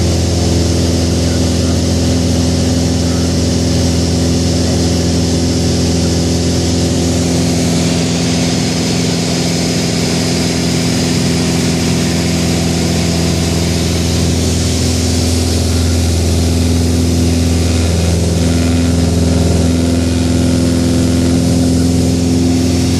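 Single-engine piston aircraft's engine and propeller heard inside a Mooney's cabin during an aileron roll: a loud, steady drone with rushing air over it.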